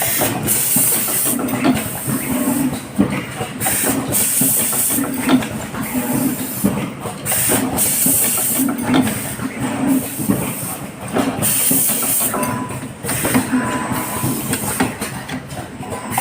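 Automatic soldering machine for LED light panels running, with hissing bursts every few seconds over uneven mechanical noise.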